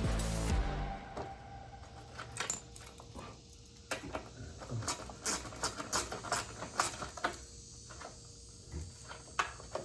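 Metal hand tools and small parts clinking and tapping as they are handled: irregular sharp clicks, sometimes several close together, with the last second of background music cutting off near the start.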